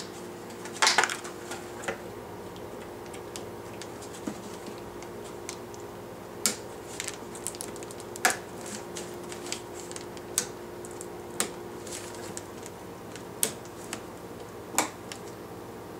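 Scattered sharp clicks and taps of small hard computer parts and screws being handled and fitted while a PC is put together, with a louder cluster of clatter about a second in, over a steady hum.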